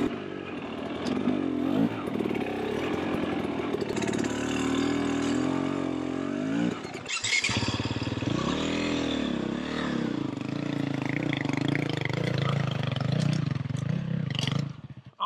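Single-cylinder two-stroke dirt bike engine, a Husqvarna TE300, revving up and down under changing throttle while the bike is ridden over rough trail. The throttle closes briefly about seven seconds in and again near the end.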